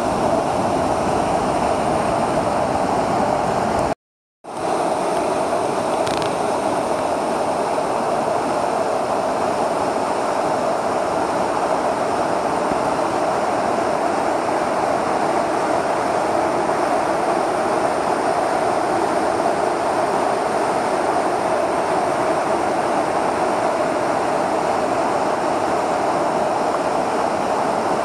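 Mountain stream rushing over rock rapids: a loud, steady wash of whitewater. It drops out for about half a second around four seconds in, then carries on unchanged.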